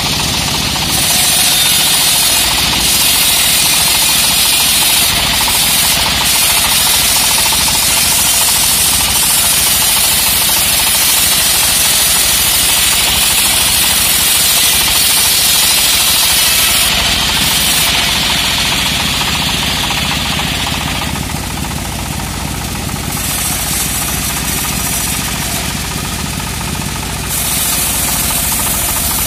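Homemade bandsaw mill running and sawing lengthwise through a teak log, a steady loud machine noise with a higher cutting sound from the blade in the wood. About two-thirds of the way in, the higher cutting sound stops while the machine keeps running.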